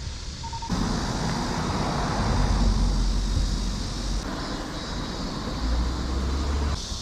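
A motor vehicle passing close by, its engine rumble and tyre noise swelling to a peak about two and a half seconds in, then easing off.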